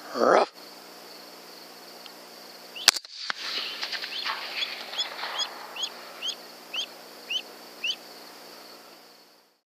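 A short loud call sliding down in pitch, then about three seconds in a single sharp 6.5 Grendel rifle shot. After it comes a run of short high chirps, about two a second, that stop near the end.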